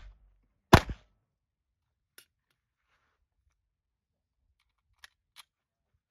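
A single pistol shot about a second in, with the tail of a shot fired just before it fading at the start. Three faint clicks follow later.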